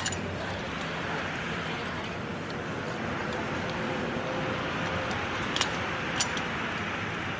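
Steady workshop background noise with a few sharp metallic clinks of tools or parts, the two loudest near the end about half a second apart.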